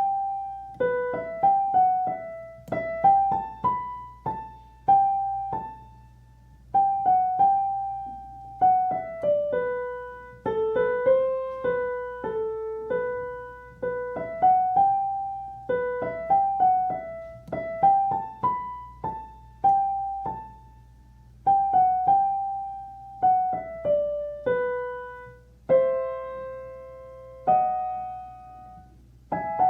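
Piano playing a simple melody high on the keyboard, mostly single notes struck and left to fade, in short phrases with brief pauses between them.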